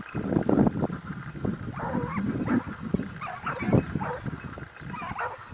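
Hunting dogs giving tongue on a rabbit hunt: short, wavering baying calls a few times, over repeated low thumps of rumble on the microphone.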